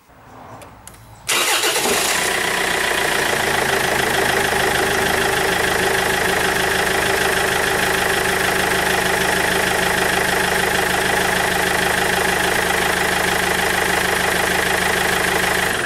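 Car engine starting: after a faint first second it fires up suddenly and then runs steadily at idle.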